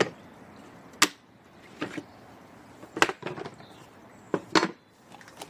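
About six sharp wooden knocks and clacks, spaced irregularly, as pieces of timber are handled and set down on a bench.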